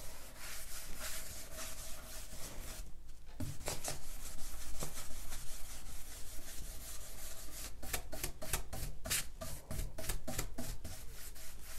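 Round brush scrubbing back and forth over a bare pine tabletop, working wax in with the grain: a steady run of short rubbing strokes, with a brief break about three seconds in and sharper, more distinct strokes in the second half.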